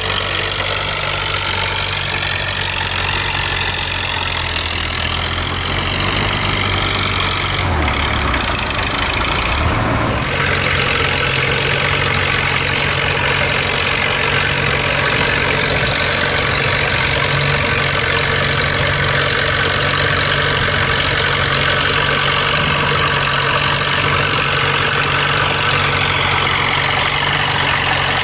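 Antique farm tractor engine running steadily, its pitch dipping and changing briefly about eight to ten seconds in before settling again.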